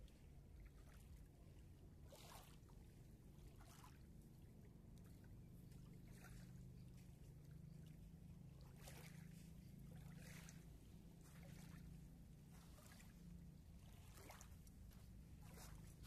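Near silence: small ripples lapping softly at the river's edge, a faint splash every second or two, over a low steady hum.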